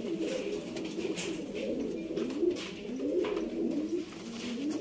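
Domestic pigeons cooing, several wavering, rising-and-falling coos that overlap.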